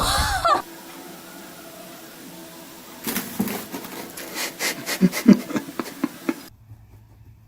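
A person exclaims "Oh!" at the start. A few seconds later an animal makes a run of irregular puffs of breath, like panting, with a couple of short low grunts, which stop abruptly about a second before the end.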